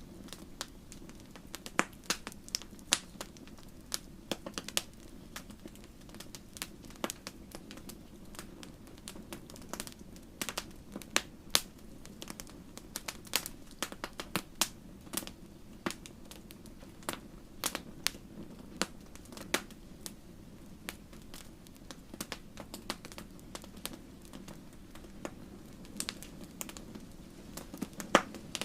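Fire burning in a fireplace, crackling with irregular sharp pops, several a second at times, over a steady low rumble.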